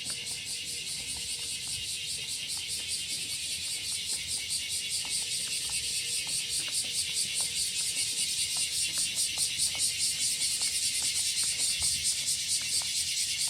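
Cicadas buzzing in chorus, a high-pitched drone with a rapid, even pulse that grows steadily louder.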